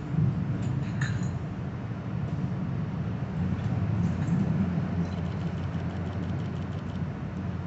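Steady low rumble of a New Jersey Transit commuter train, heard from inside the passenger car, with a light, fast rattle in the last couple of seconds.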